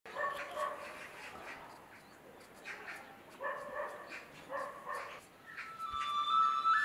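A dog barking repeatedly, short barks in small groups about every second. Held flute-like music tones come in near the end.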